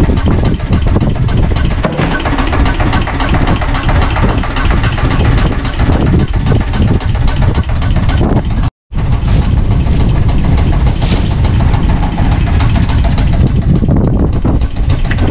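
Fishing boat's engine running at idle under a loud, steady low rumble of wind on the microphone. The sound cuts out for a split second about halfway.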